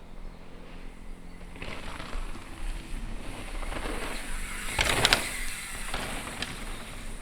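Polygon Collosus DH9 downhill mountain bike being ridden on a trail: tyres on dirt with rattling from the bike, and a cluster of sharp clicks and knocks about five seconds in.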